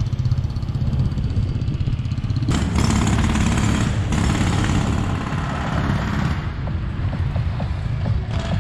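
Wind rushing over the microphone of a cyclist's action camera while riding along a street with motor traffic. The rush swells louder for a few seconds in the middle.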